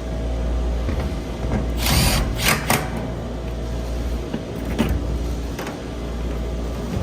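Tool work on chiller parts: a few short noisy bursts, the loudest about two to three seconds in and another near five seconds, over a steady low rumble.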